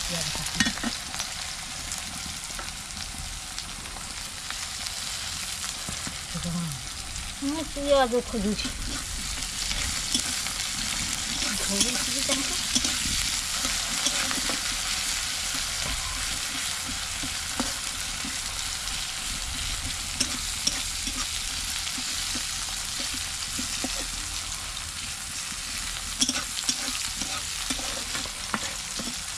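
Sliced onions sizzling steadily in hot oil in a kadai, stirred with a metal spatula that scrapes and clicks against the pan.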